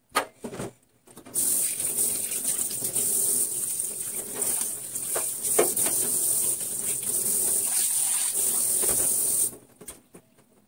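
Kitchen tap turned on and running into a stainless-steel sink for about eight seconds as a utensil is rinsed under the stream, then shut off sharply. Two short knocks come just before the water starts.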